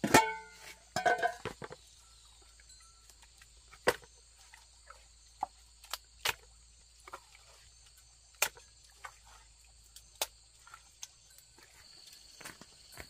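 Aluminium cooking-pot lid clanging and ringing as it is lifted off and set down, two strikes in the first second and a half, then scattered sharp clinks as food is scooped out of the pot. A steady high drone of insects runs underneath.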